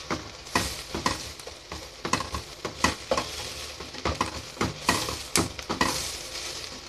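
Chopped onions, garlic and tomato paste sizzling in oil in an aluminium pot as a wooden spoon stirs them, scraping and knocking on the pot about twice a second. The tomato paste is being fried so that its flavour cooks.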